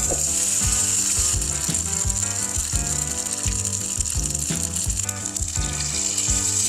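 Grated potato, bacon and egg batter sizzling and crackling in hot oil in a cast-iron skillet as it is spooned in and pressed flat with a metal spoon; the sizzle jumps up sharply as the batter hits the oil. A music track with a steady beat plays underneath.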